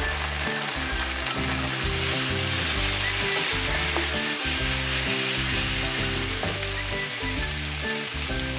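Beef steak bites sizzling in garlic butter in a hot nonstick skillet, stirred with a spatula, with background music underneath.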